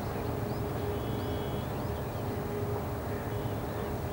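Outdoor ambience in dry scrub forest: a steady low rumble with a faint, wavering hum, and a few faint high chirps from small birds.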